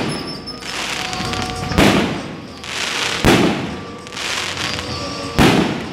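Aerial fireworks bursting: three sharp bangs about one and a half to two seconds apart, with crackling between them.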